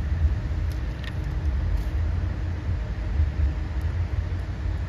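A steady low rumble with a few faint ticks.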